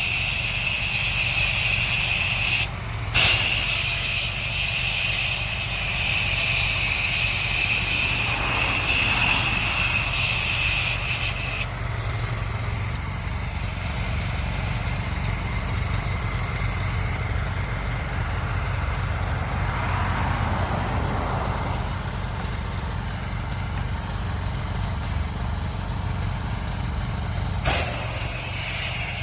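Engine of a pressure-washing spray rig running steadily, with the hiss of its spray wand putting cleaning chemical on stone. The spray cuts out briefly about three seconds in, stops about twelve seconds in, and starts again near the end, leaving the engine running on its own in between.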